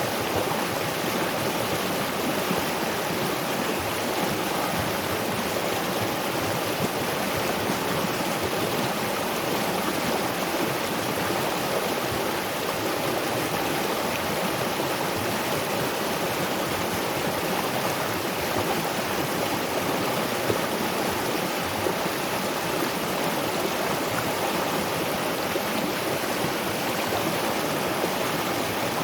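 Waterfall and river water rushing, a steady, unbroken roar of falling and flowing water.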